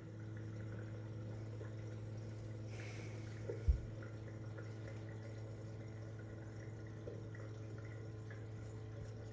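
Faint room tone with a steady low electrical hum, and a single low thump about three and a half seconds in.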